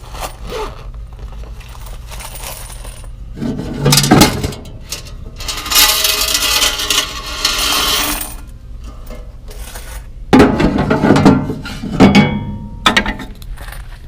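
Coins from a vending machine's coin box clattering and pouring as the change is emptied out, in three loud spells: a short one about four seconds in, a longer dense pour in the middle, and another spell near the end.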